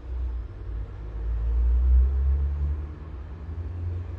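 A low rumble that swells to its loudest about two seconds in and then eases off.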